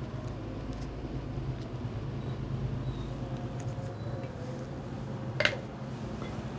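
Steady low background hum, with faint handling clicks and one sharper click a little over five seconds in, as a grease tub and a pump bearing are set down and picked up.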